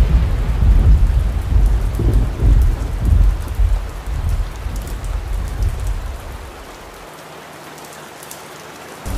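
Thunderstorm: steady rain with a heavy rolling thunder rumble that dies away about seven seconds in, leaving only the hiss of the rain.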